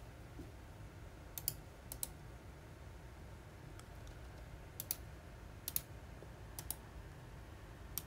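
Faint, sharp clicks of a computer mouse button, a handful of single clicks and quick pairs, over a low steady hum.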